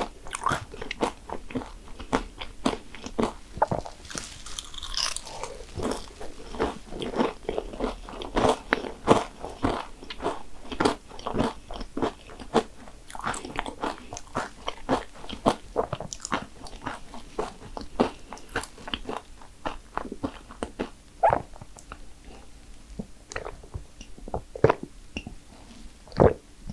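Biting into and chewing crisp fried cannoli shells: a dense, irregular run of sharp crunches and crackles.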